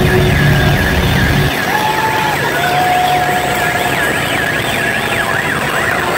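Live rock band's siren-like electronic warble, a tone sweeping up and down several times a second, with a couple of held notes beneath it; the bass and drums drop out about one and a half seconds in.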